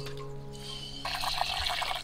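Buffalo's milk squirting from a hand-squeezed teat into a clay pot, heard as a hissing spray from about a second in. Background music with long held notes plays throughout.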